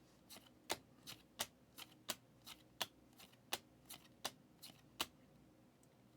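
Thick trading cards being flipped through one after another, a short sharp click as each is moved, about three a second, a dozen or so in all, stopping about five seconds in.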